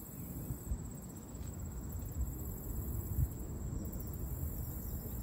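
Outdoor lakeside ambience: a steady high, evenly pulsing insect trill over a low, uneven rumble, with a few soft knocks.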